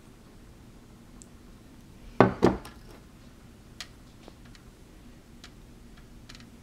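A stainless-steel saucepan clunks twice, about a quarter second apart, about two seconds in. Then a few faint soft clicks follow as a silicone spatula spreads the fudge mixture in a foil-lined pan.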